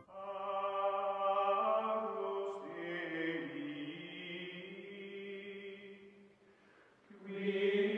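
Outro music: a held, chant-like sung chord with slowly shifting notes. It fades out about six seconds in and swells back about seven seconds in.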